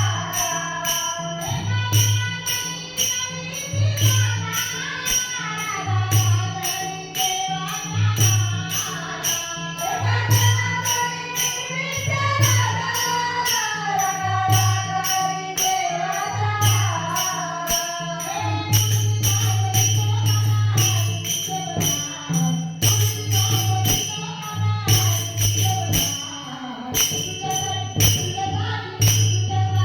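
Marathi gavlan devotional folk music: a gliding, ornamented melody over a steady beat of jingling percussion and a low drum.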